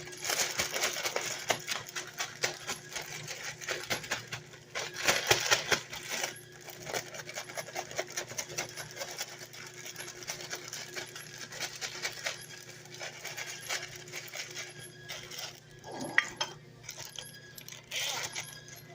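Irregular rattling and clinking of things being handled, in dense runs of small clicks, busiest in the first second and around five seconds in.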